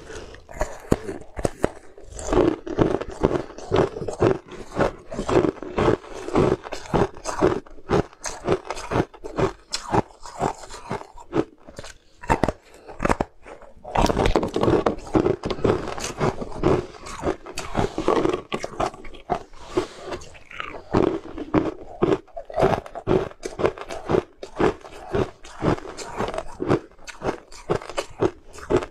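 Mouth eating sounds: crisp biting and crunching while chewing a translucent snowflake-shaped sweet, several crunches a second, easing off briefly about twelve seconds in before going on.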